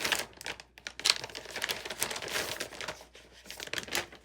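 Makeup product packaging being handled: irregular crinkling and rustling of paper and cardboard, with a sharper click about a second in.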